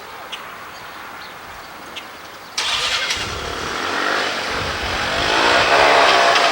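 Three-wheeler ATV engine that comes in suddenly about two and a half seconds in and then revs up and down, growing louder toward the end.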